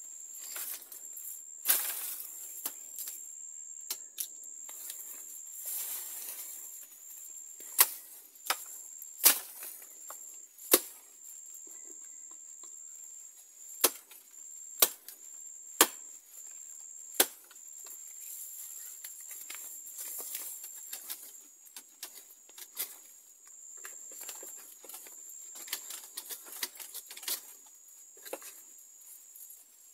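A hand blade chopping at a bamboo shoot at the foot of a bamboo clump: sharp, irregular single strikes, the hardest a run of about eight blows in the middle, with leaves rustling between them. A steady high-pitched whine runs underneath.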